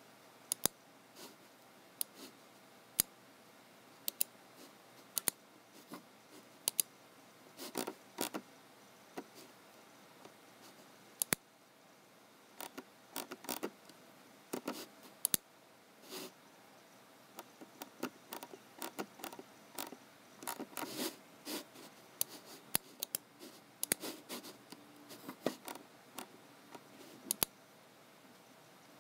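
Computer keyboard keys and mouse buttons clicking close up: scattered single clicks at first, then quicker runs of taps from about halfway through, over faint room hiss.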